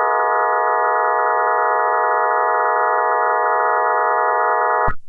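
Mock Emergency Alert System attention tone: a loud, steady electronic chord of several pure tones held without change, cutting off abruptly just before the end.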